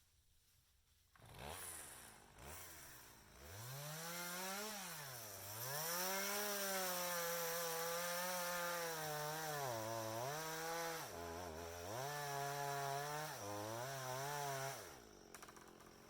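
Two-stroke chainsaw starting about a second in, then running with the throttle opened and let back to idle several times, and stopping near the end.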